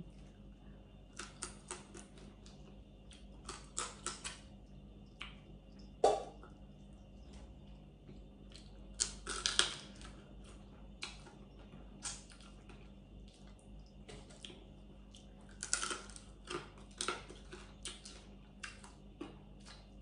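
Cooked blue crab being picked apart by hand and eaten: scattered clusters of short, sharp clicks and cracks of shell and mouth sounds, loudest about six and ten seconds in.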